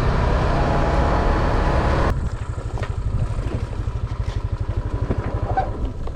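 A 125cc scooter's single-cylinder engine running under a rush of wind noise. About two seconds in, the wind noise cuts out abruptly and the engine is left putting along with a fast, even pulse that sounds like a lawnmower.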